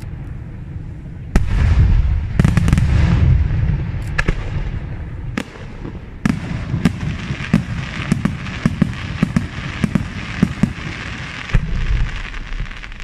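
Aerial firework shells bursting in a professional display: a loud bang about a second and a half in and more shortly after, over a low rumble, then from about six seconds a quick run of sharp reports, several a second.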